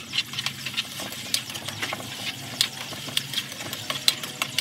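Metal spatula scraping and clinking against a steel wok while tocino sizzles in hot oil, with irregular sharp clicks several times a second over the hiss of the frying.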